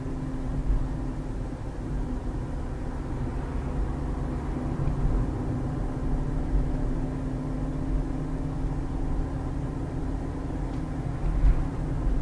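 A car driving along a city street: steady engine drone over low road rumble, with a couple of brief low bumps.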